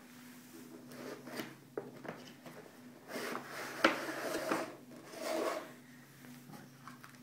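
Cardboard phone box being opened by hand: the sleeve sliding off with rubbing and scraping, a sharp tap about four seconds in, then rustling of the plastic-wrapped contents. A faint steady low hum runs underneath.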